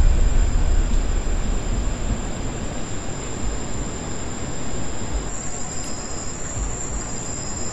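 Steady outdoor night background noise: an even hiss with faint, thin high tones, a deep rumble fading out over the first two seconds, and a few brief low rumbles later on.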